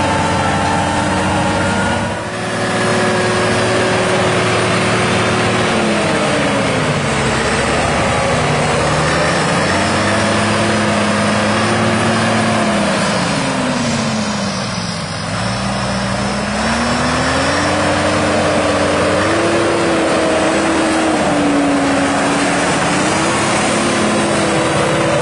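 Tractor diesel engine running under load, its speed dropping and climbing again twice.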